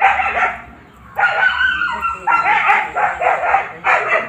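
A dog barking and yelping: one bark at the start, a longer whining call about a second in, then a quick run of short barks.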